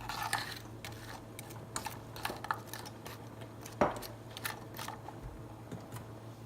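Shrimp cooking in butter in a skillet, giving scattered pops and clicks, with one louder knock about four seconds in, over a low steady hum.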